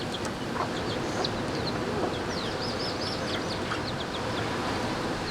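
Birds calling: many short, high chirps that slide down in pitch, with a faint clucking from chickens, over a steady outdoor hiss.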